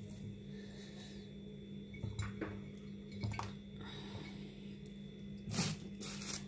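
Chopped red and white onion being handled in a glass bowl: soft squishy rustles and a few light clinks, with louder rustling twice near the end, over a steady low hum.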